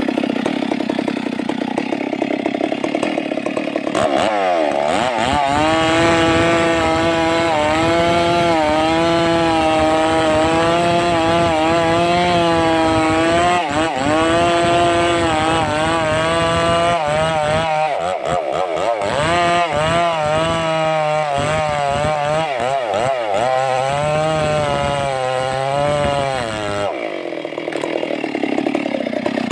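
Stihl MS 382 two-stroke chainsaw running. Its pitch rises sharply about four seconds in, stays high and wavers with brief dips, then drops back lower near the end.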